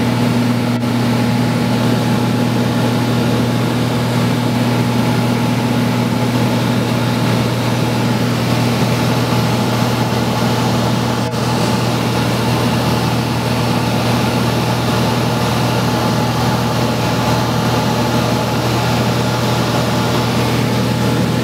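Steady engine drone of a small aircraft in flight, heard from inside the cabin, with a constant low hum.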